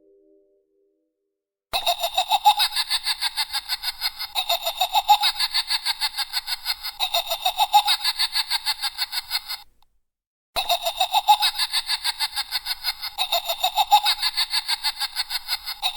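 Rapid pulsing laughter, a spooky Halloween sound effect, starting about two seconds in. It breaks off for about a second near the middle, then starts again.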